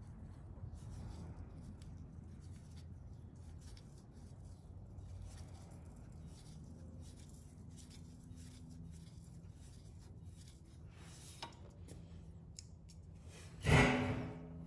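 Faint small metallic clicks and scraping as a crash bar bolt is threaded in by hand, over a steady low hum. Near the end there is one loud metallic clank with a short ring.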